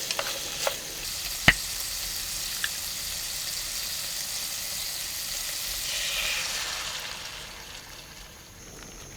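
Food sizzling in a pan, with a few light clicks of a utensil against it and one sharp knock about a second and a half in. The sizzle dies down near the end.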